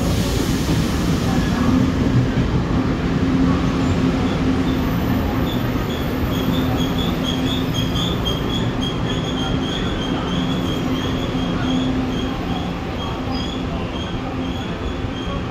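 Taiwan Railway Chu-Kuang express passenger cars rolling past along a station platform: a steady rumble and low hum, joined about four seconds in by a high, wavering wheel squeal that carries on to the end.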